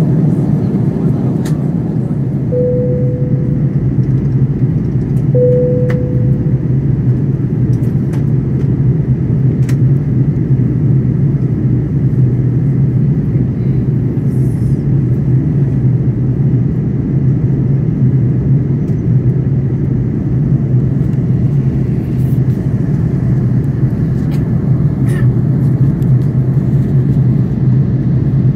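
Steady low cabin noise of an Airbus A330-900neo in flight, heard at a window seat: the Rolls-Royce Trent 7000 engines and the airflow. Two brief chime tones sound a few seconds in, about three seconds apart.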